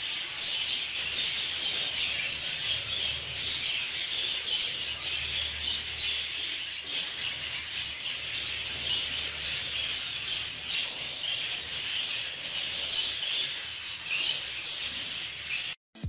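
A flock of budgerigars chattering continuously in a dense chorus, stopping abruptly near the end.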